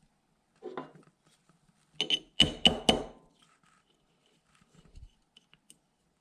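Small hammer tapping a roll-pin starter punch about four times in quick succession, metal on metal with a short ring, to start the bolt-catch roll pin into an AR-15 lower receiver. A softer knock comes just before the taps, and faint clicks of the parts follow.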